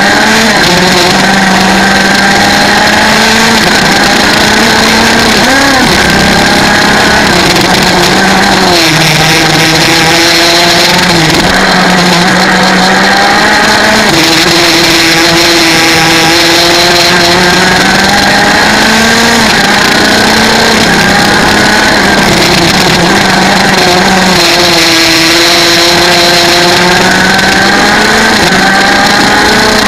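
A 125cc two-stroke racing kart engine, very loud and close to the microphone, pulls hard through a lap. Its pitch climbs along each straight and drops sharply several times as the driver lifts off for the corners.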